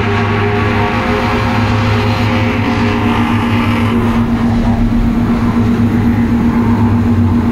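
Slipform concrete paver running while it lays pavement-quality concrete: a steady machine drone with a constant low hum, growing a little stronger about three seconds in.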